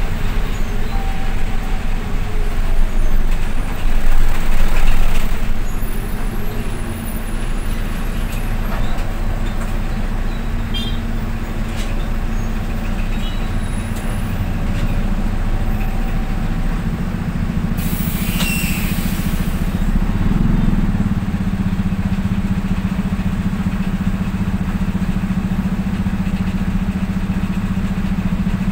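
Bus running steadily on the road, a constant low engine hum with road noise. It swells for a moment about four seconds in, and a short, loud hiss of air comes at about eighteen seconds.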